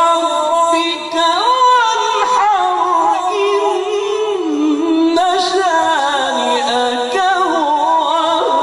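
Male Quran reciter's voice in melodic mujawwad recitation, drawing out long ornamented phrases that glide up and down in pitch, with a short break for breath about five seconds in.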